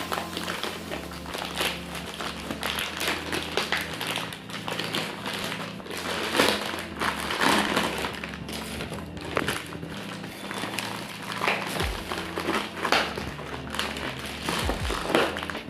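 A phone parcel's packaging being handled and opened by hand: irregular crinkling and rustling with occasional taps.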